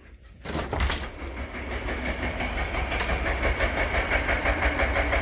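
Construction machinery on a building site starting up abruptly and running loudly, with a sharp crack near the start, then a steady fast pulsing rhythm and a constant high whine.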